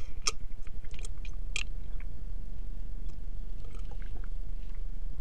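Several short, light clicks and taps, most of them in the first two seconds, over a steady low hum.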